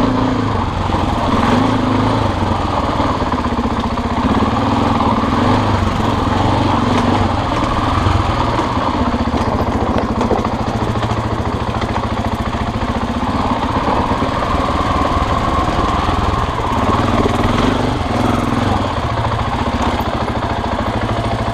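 Husqvarna dirt bike engine running while it is ridden down a rocky trail, its note rising and falling a little with the throttle.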